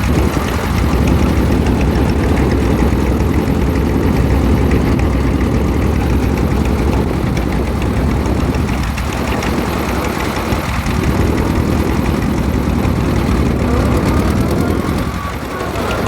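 A loud, steady engine running, with a strong low rumble.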